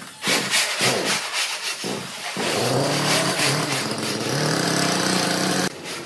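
Sawmill machinery: a run of metal knocks and clanks, then about two and a half seconds in a machine motor starts and runs with a steady hum that wavers a little in pitch, cutting off suddenly near the end.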